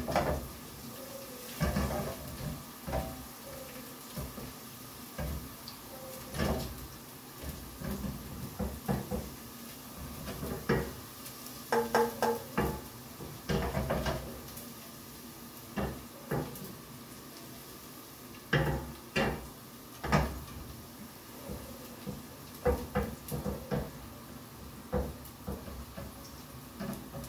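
A spatula scraping and knocking against a frying pan as garlic is stirred in hot olive oil, in scattered clatters, some in quick runs of several strokes, over a low steady background.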